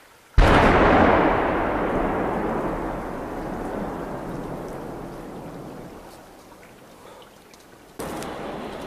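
A missile fired from a warplane exploding close by: one sudden loud blast whose rumble rolls on and slowly fades over several seconds. About eight seconds in, the sound cuts abruptly to a steady, noisier background.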